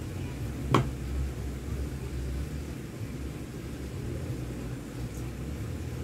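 Small parts handled on a wooden workbench: one sharp tap a little under a second in, over a steady low rumble.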